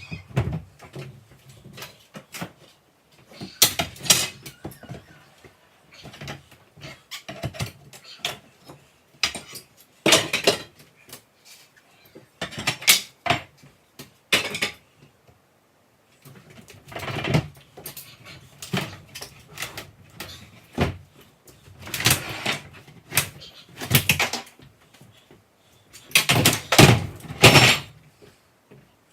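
Irregular knocks, bangs and scraping of wood and metal as a countertop is pried off kitchen base cabinets with a pry bar and hammer, in clusters with short pauses.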